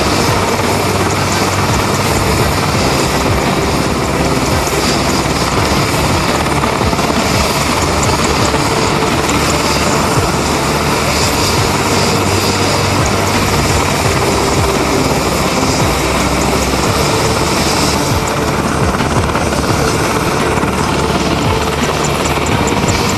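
UH-60 Black Hawk helicopter running on the ground, its turbine engines and turning rotors giving a steady, loud whine and rapid blade chop.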